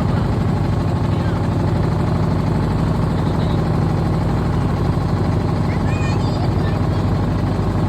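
A boat's engine running steadily, a low, even drone.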